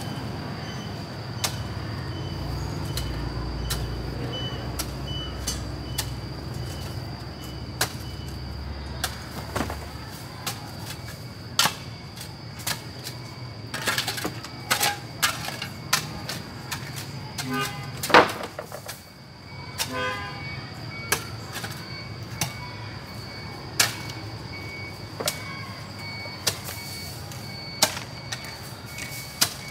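A hand hoe struck repeatedly into hard-packed soil and broken brick, sharp knocks about every second or two. A low rumble runs under the first ten seconds, and a short pitched sound stands out a little past the middle.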